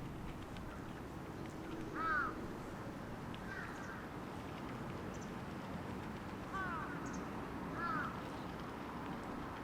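A crow cawing: four short calls, about two seconds in, about three and a half seconds in, about six and a half seconds in and about eight seconds in, over a steady low background hum.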